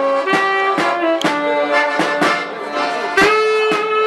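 Small live band playing a folk tune: accordion and saxophone carry the melody over a steady beat of a hand-held drum struck with a stick, about two beats a second.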